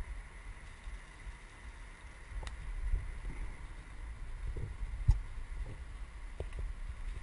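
Mountain bike rolling over a leaf-covered dirt trail, heard from a helmet camera: a steady low rumble of wind and tyre noise, with sharp knocks about two and a half and five seconds in as the bike jolts over the ground.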